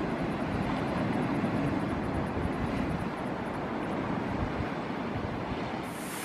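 Wind rumbling on the microphone over the wash of surf. Near the end it switches to a brighter, steadier hiss of surf.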